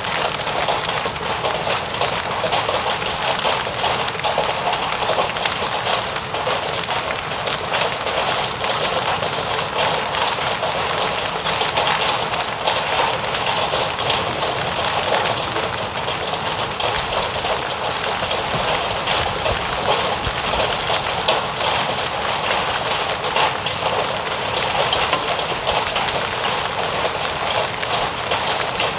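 Heavy rain mixed with small hailstones pelting an asphalt driveway and garden: a dense, steady rush of rain peppered with many fine ticks from hail strikes.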